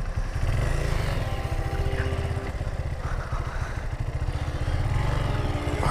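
Honda CRF230L's single-cylinder four-stroke engine running steadily at low revs as the motorcycle pushes slowly through deep flood water.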